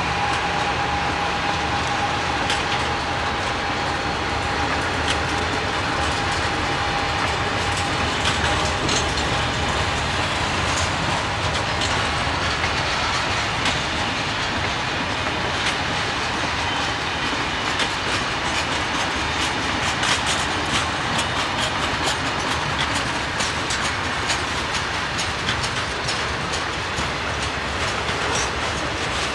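Conrail freight train's cars rolling steadily past, with the wheels clattering and clicking over the rails. A steady high tone fades out about twelve seconds in.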